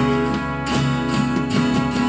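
Worship band playing a song: strummed acoustic guitar to the fore, with keyboard, bass guitar, drums and trumpet.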